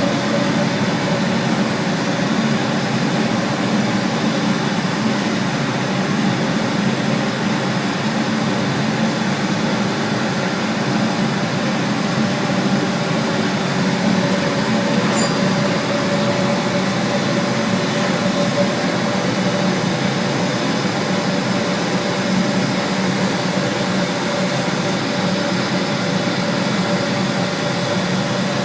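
Steam boiler plant running with a loud, steady roar and hum that holds even throughout.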